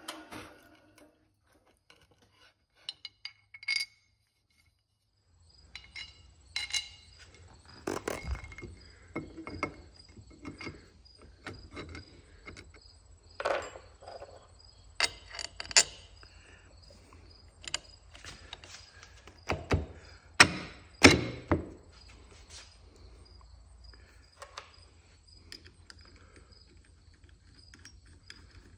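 Irregular clinks, taps and knocks of metal parts being handled: an aluminium mounting plate and stainless screws being fitted onto an electric outboard pod. A low hum runs under them from about six seconds in, and the two loudest knocks come about two-thirds of the way through.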